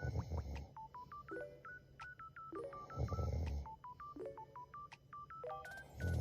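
A woman snoring in her sleep, three low snores about three seconds apart, over a looping electronic tune of short beeping notes.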